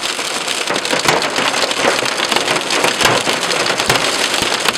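Hail and heavy rain pelting a Toyota Camry's roof and windshield, heard from inside the car: a dense, irregular clatter of sharp hits over a steady wash of rain.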